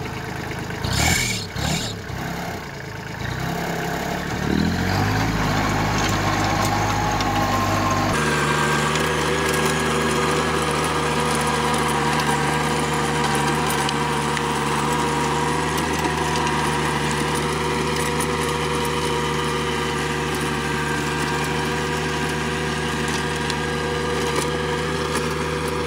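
Kubota B2441's three-cylinder diesel engine speeding up over the first few seconds, with a couple of knocks early on. From about eight seconds in it runs steadily under load, pulling a 24-blade rotavator tilling the soil, with a steady higher whine above the engine note.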